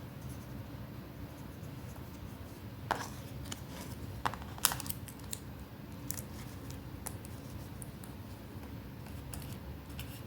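Paper being handled and cut by hand, with a handful of short, sharp snips and clicks, the loudest clustered a little past the middle, over a steady low background hum.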